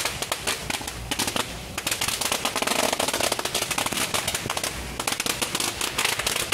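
A string of firecrackers going off in a rapid, dense run of pops, with a brief lull about a second and a half in.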